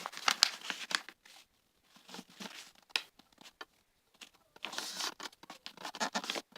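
A sheet of A4 paper being folded and creased by hand: rustling and crinkling with small clicks, in two spells with a quieter stretch between them.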